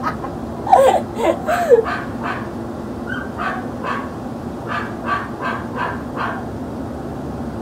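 A dog yelping a few times, then barking in a run of short barks, about two a second.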